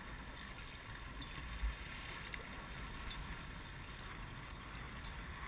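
Wind buffeting the microphone over the steady hiss of choppy open water around a boat, with a low bump about a second and a half in and a few faint clicks.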